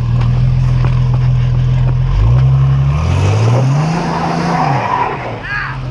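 Car engine running steadily, then revved about two seconds in and again higher a second later, holding before dropping back near the end, with the tyres spinning and slipping on a muddy off-road trail.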